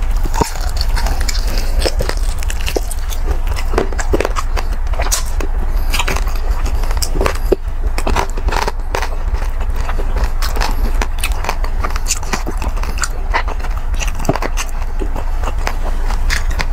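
Close-miked crunching and chewing of crispy pata, deep-fried pork knuckle, with many short crackles of the fried skin being bitten. A steady low hum runs underneath.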